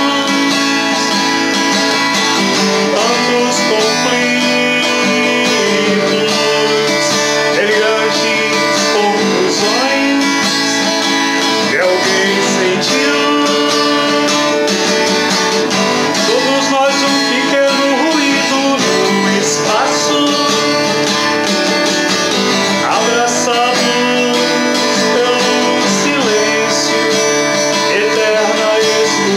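Acoustic guitar strummed in a steady accompaniment, with a man singing over it.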